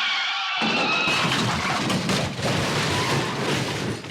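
Tyres screeching, then about half a second in a sudden loud car crash that goes on for a few seconds as a rough clatter of breaking and falling debris: the crash that ends a chase scene.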